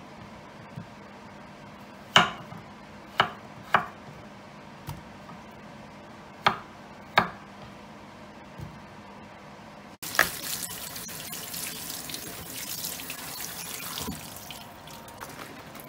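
A few sharp knocks, then about ten seconds in a kitchen tap turns on and water runs onto cut raw potato chips in a plastic colander in a steel sink, rinsing them, before easing off near the end.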